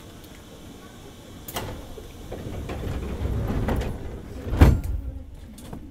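JR East 205 series commuter train's air-operated sliding passenger doors closing: a click, a swelling rumble as the doors slide, then a loud thud about four and a half seconds in as they shut.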